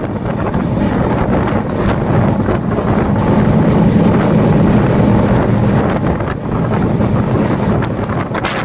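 Wind buffeting the microphone over a steady low rumble, which swells through the middle.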